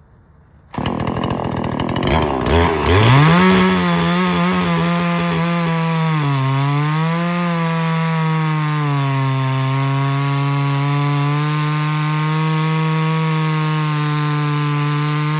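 Ported Neotec NH843 two-stroke chainsaw, a Husqvarna 543XP clone with its base gasket deleted, comes in abruptly about a second in and climbs to full throttle. It then cuts through a log, its engine note dipping briefly around the middle and then holding steady under load.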